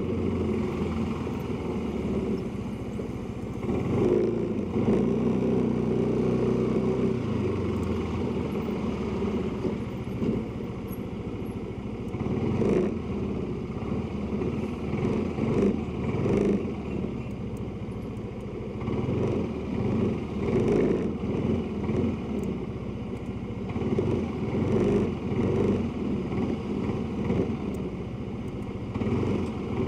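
Motorcycle engine running while riding through town traffic, with road and wind noise; the engine's pitch and loudness rise and fall repeatedly as the bike speeds up and eases off.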